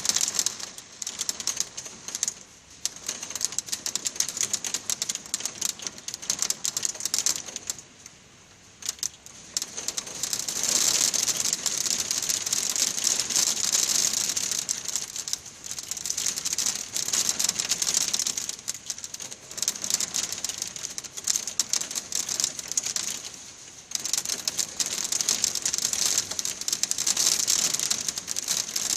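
Hailstones with heavy rain clattering on a hard surface: a dense rattle of many small hits that swells and eases several times.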